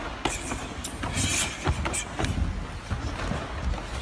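Karate sparring: irregular sharp thuds and slaps of bare feet and strikes on a dojo floor, over a low rumble, with a brief hiss about a second in.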